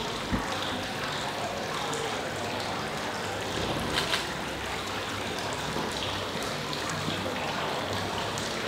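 Steady trickle and splash of water from a courtyard fountain, with a couple of brief clicks.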